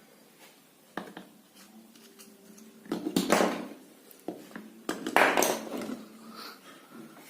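Handling noises: a sharp knock about a second in, then two short bursts of scraping and rustling about three and five seconds in, over a faint steady hum.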